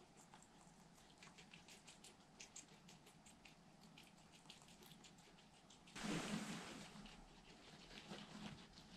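Guinea pigs munching leafy greens and cucumber: a faint run of small crunching clicks. About six seconds in comes a louder rustle lasting about a second.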